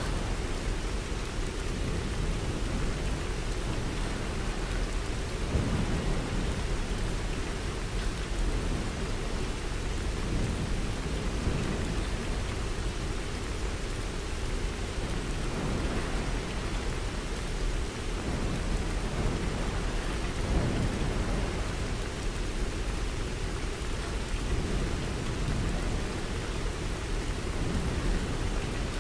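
Steady, heavy rain falling, an even wash of sound weighted toward a deep, low rumble with no distinct claps or breaks.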